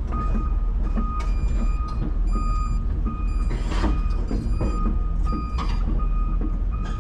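Volvo EC300 excavator's travel/backup alarm beeping steadily about twice a second over the low rumble of its diesel engine, with a short hiss about four seconds in.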